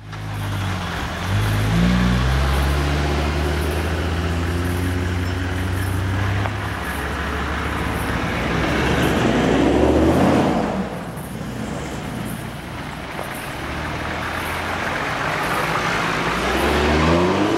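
Toyota LandCruiser 4WDs driving past one after another on a sandy dirt track, engines pulling with tyres rolling over the sand. One passes close about ten seconds in, and another comes up loud near the end.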